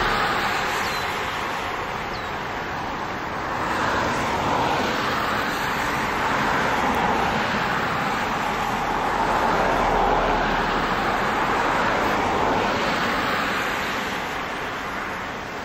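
Traffic passing on a highway: a steady rush of cars that swells and fades several times as vehicles go by.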